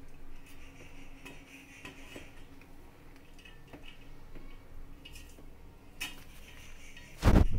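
Boiled rice being scooped by hand from a plastic colander and dropped into a metal pot: soft rustling with scattered light clicks, then a loud thump near the end.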